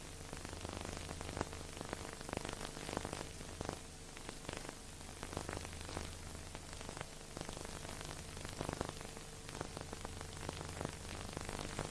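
Steady hiss with irregular crackles and clicks over a faint low hum: the surface noise of a transfer of a silent film that has no soundtrack.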